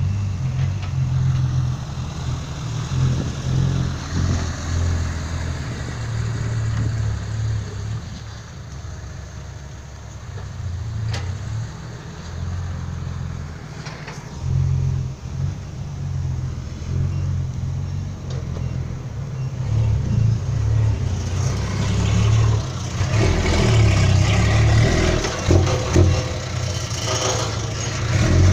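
Diesel dump truck engine running, its low hum rising and falling with the throttle. It grows louder and rougher over the last several seconds as the truck revs or draws closer.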